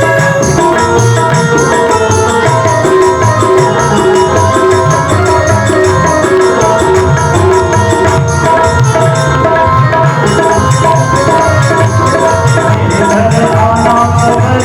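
Devotional kirtan accompaniment: hand drums keep a steady rhythm under sustained held keyboard chords.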